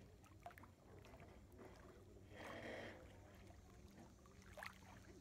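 Near silence: faint lapping of lake water at the shore, with one short louder rush of noise about halfway through.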